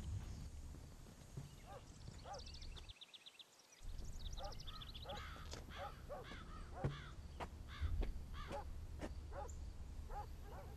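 Birds calling outdoors: a quick high trill about two seconds in, then a long run of short repeated calls over a low steady background rumble. The sound drops out briefly about three seconds in.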